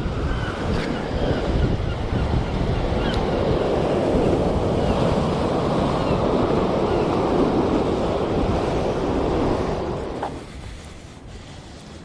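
Sea surf breaking and washing over rocks, with wind buffeting the microphone. The sound drops away about ten seconds in to a much quieter hush.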